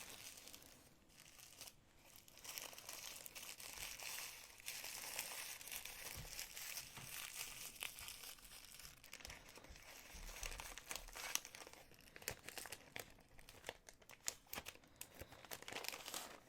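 Small plastic zip-lock bag being handled and opened, with a continuous crinkling rustle and many small clicks. It gets louder about four seconds in.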